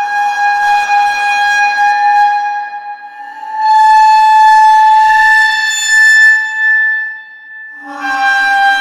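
Held, reedy tones from a sampled instrument in the EERIE 2 Kontakt library. One note sounds for about three seconds, then a slightly higher note for about four seconds, then the first pitch comes back near the end.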